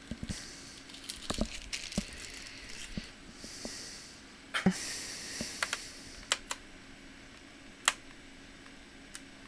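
A plastic prying tool worked against a Toshiba Satellite laptop's plastic case: scraping with a run of irregular small clicks and taps, and one sharper click near the end.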